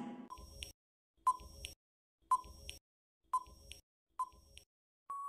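Quiz countdown timer sound effect: five short beeps about a second apart, then one longer, steady beep near the end.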